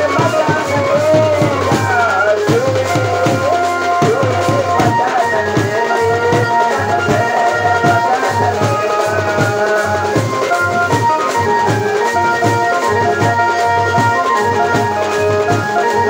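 Loud wedding-band music played through horn loudspeakers: a melody line that slides in pitch at first and then moves in held notes, over a steady drum beat.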